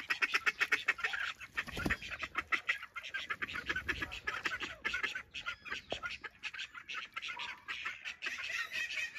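A flock of ducks calling continuously, with many rapid overlapping short calls and quacks. There is a soft low thump about two seconds in.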